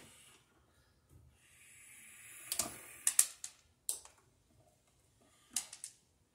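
Hand pliers working electrical wires at a junction box: a scraping noise swells for about a second, then come a few sharp metallic clicks of the jaws.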